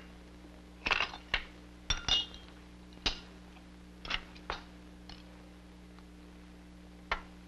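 Dishes and cutlery clinking at a table: a series of sharp, irregular clinks and knocks, the last near the end, over a steady low hum.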